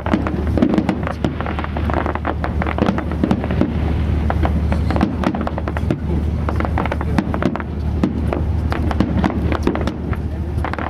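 Fireworks going off: a dense run of bangs and crackling pops, one after another, over a steady low drone.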